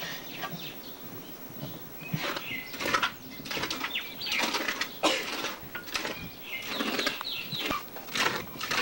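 Short, repeated bird chirps over bursts of rustling, scraping noise that come and go, strongest about three seconds in, around five seconds and near the end.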